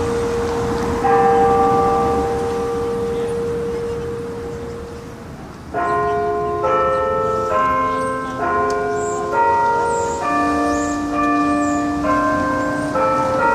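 Tower bells ringing. A bell struck about a second in rings out and slowly fades. Then, about halfway through, a run of bells of different pitches is struck one after another, a little under one a second.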